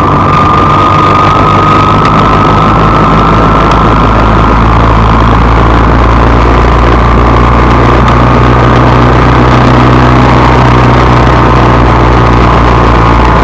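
Vehicle engine running steadily and loudly, with a whine that rises slightly in pitch over the first few seconds and then holds.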